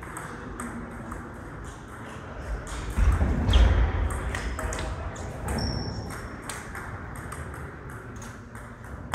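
Table tennis ball ticking back and forth off the rackets and table during a rally, a few sharp clicks a second, with more ball ticks from other tables in the hall. A heavy low thump and rumble about three seconds in is the loudest sound.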